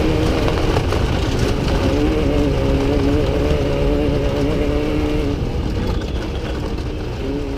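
Off-road race vehicle's engine running under a heavy low rumble of wind and terrain, its note wavering slightly, easing off a little near the end.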